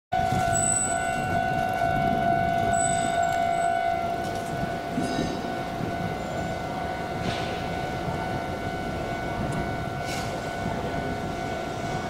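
Railway level-crossing warning signal sounding as one steady high tone, while an approaching Hankyu 1300 series train's wheels rumble on the rails.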